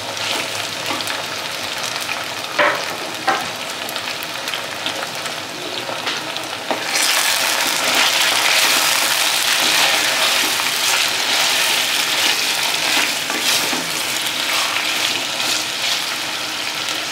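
Chicken pieces with chopped tomato, ginger and green chillies sizzling in hot oil in a pot while a wooden spatula stirs them; the sizzle grows louder and brighter about seven seconds in as the pieces are turned through the oil, with a couple of light knocks of the spatula a few seconds in.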